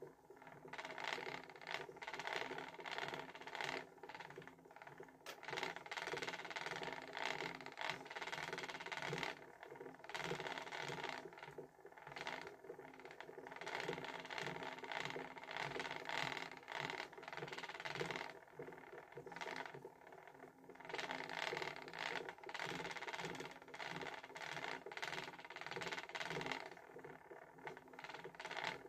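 Wooden treadle spinning wheel running while yarn singles are spun: a continuous rhythmic clatter and clicking of the wheel, treadle and flyer, swelling and dipping with the treadling.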